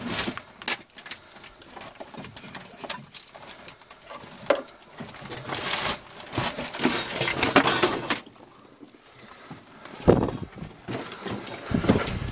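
Scuffing and scraping as someone crawls over loose bricks dumped in a tunnel, with sharp knocks and clatters scattered through, the loudest about ten seconds in.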